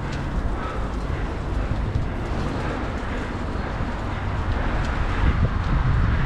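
Wind buffeting the microphone of a camera on a moving bicycle: a steady low rumble, with the hiss of riding on a paved path and street traffic beneath it.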